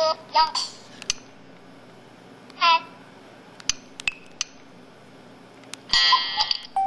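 Electronic sound effects from an SPH-E2000 mobile phone's speaker: the last of a run of quick pitched chirps, then a few sparse clicks and one short chirp. About six seconds in, a bright chiming jingle starts and ends on a held tone.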